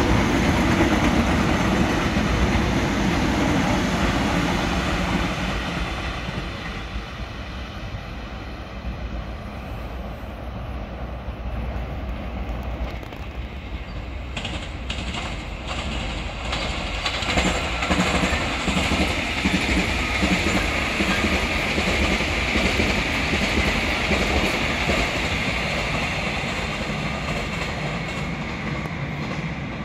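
An electric commuter train running past on the rails, its rumble fading over the first several seconds. After a quieter spell comes a short run of clicks, then steady rail noise building again as another passenger train runs past.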